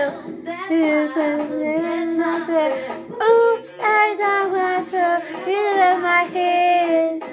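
A woman singing solo, holding long notes that bend and slide in pitch.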